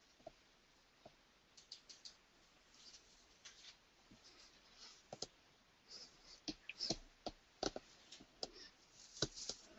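Faint, irregular clicks and taps, some in quick little clusters, over a low background hiss.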